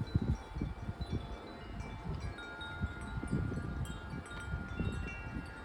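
Wind chimes ringing in gusty wind, many overlapping pitched tones struck at irregular moments and left to ring, with low buffeting of wind on the microphone underneath.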